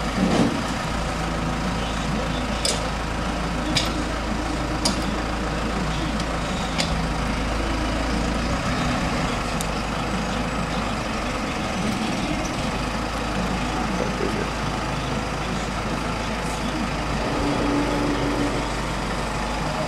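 Telehandler engine running steadily, with about five sharp clicks in the first half.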